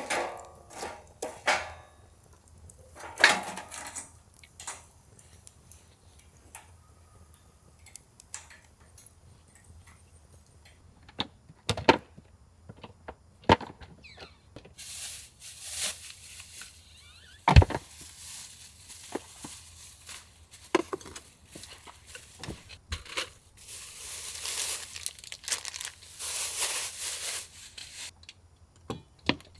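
Hands handling camp gear: scattered clicks and knocks, then, from about halfway in, long stretches of rustling and crinkling like a bag or packaging being handled or torn.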